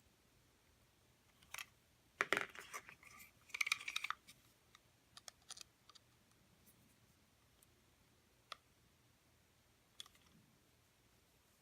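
Small hand tools clicking and scraping against the drive wheel assembly of a robot vacuum as a pin is pressed out. Two short bursts of clattering about two and four seconds in, then a few single clicks.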